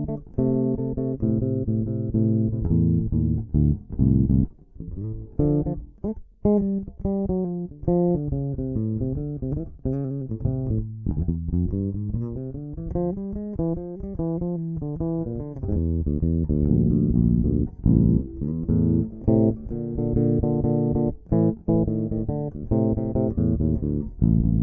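Electric bass guitar playing an A minor blues line, one note after another with short gaps, with notes sliding up and down in pitch in the middle.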